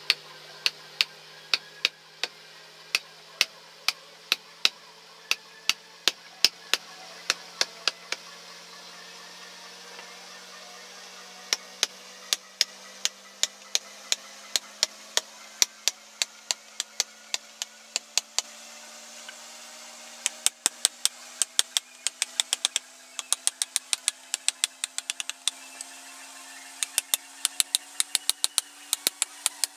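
Wood-carving chisel being struck by hand on its handle, driving it into a wooden block with sharp knocks. The knocks come about two a second with short pauses, then quicken into rapid clusters near the end.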